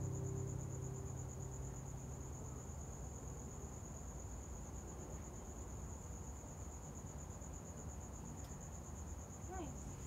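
The last acoustic guitar chord rings out and fades over the first few seconds, leaving a cricket's steady high trill.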